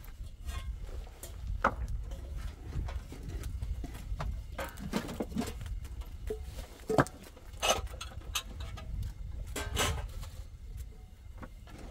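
Irregular hard knocks and clacks of rocks being handled and set in place on a dry-stone wall, over a steady low rumble.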